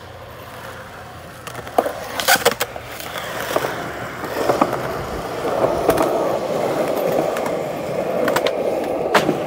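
Skateboard wheels rolling on concrete, growing louder from about halfway through, with several sharp clicks and knocks scattered across it.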